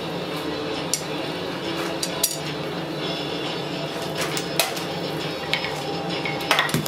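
Scattered metallic clinks and taps of blacksmith's tongs and tools against a steel anvil while a red-hot guard blank is handled, with a small cluster of clinks near the end, over a steady hum.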